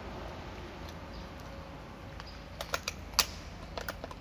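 Concrete drill bit being pushed into the SDS-plus chuck of a Makita DHR182 cordless rotary hammer: a quick run of sharp metal clicks starting about two and a half seconds in, the loudest about a second before the end.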